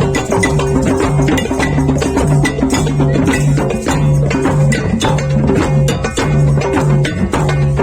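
Background music with a steady percussive beat over a repeating bass line.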